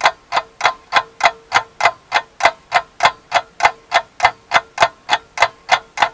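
Fast clock ticking, a sharp even tick about three times a second, with a faint steady tone underneath.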